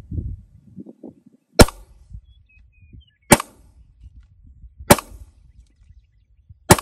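Four single shots from a Grand Power K100 Mk 12 9mm pistol, fired slowly and evenly about one and a half to two seconds apart.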